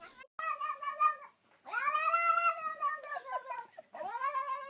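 Domestic cat meowing in three long, drawn-out calls; the middle one is the longest and rises then falls in pitch.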